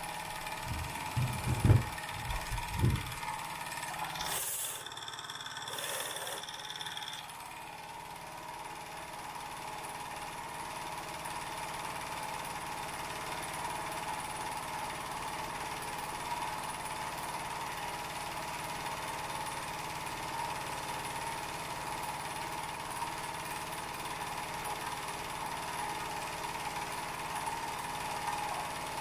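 Wilesco D20 toy steam engine running steadily, a continuous mechanical sound with a constant hum. A few knocks come in the first three seconds, and a brief hiss about four to seven seconds in.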